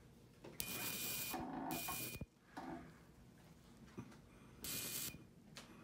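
Electrocautery unit fired in two bursts on a fresh surgical wound, each a hissing buzz with a steady high tone, the first about a second and a half long and the second shorter near the end: cauterizing the wound to stop bleeding.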